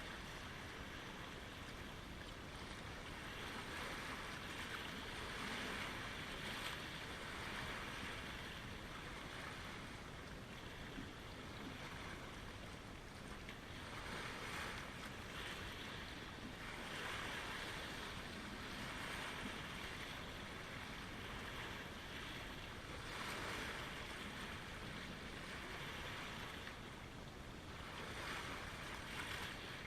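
Small lake waves lapping at the shore: a steady wash of water that swells gently every few seconds.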